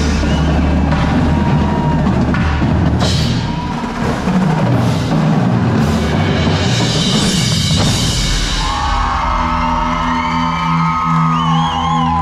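Indoor drumline and front ensemble playing: dense drumming with cymbal crashes, then from about eight seconds in sustained held tones with a wavering pitch over steady low notes.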